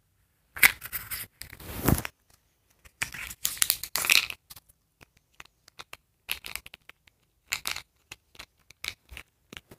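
Small mystery-package wrapper being torn open by hand: two long rips about half a second and three seconds in, then scattered crinkles and rustles as the contents are taken out.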